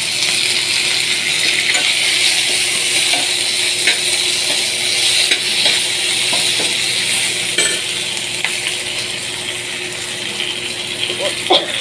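Tempering sizzling in hot oil: curry leaves, green chillies, cumin and black mustard seeds frying with a steady hiss, with a few scattered clicks from stirring. The hiss eases a little in the second half.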